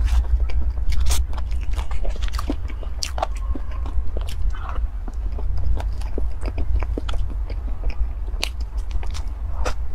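Close-miked eating of cream cake: biting and chewing mouth sounds with many short, sharp clicks and smacks, over a steady low hum.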